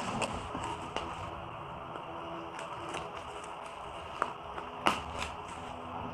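Bubble wrap crinkling and rustling as a parcel is unwrapped by hand, with a few sharp clicks about four to five seconds in.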